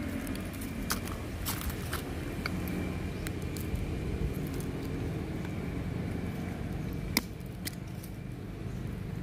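Scattered sharp clicks and cracks of seed shells as a monkey eats at close range, with one louder crack about seven seconds in, over a steady low rumble.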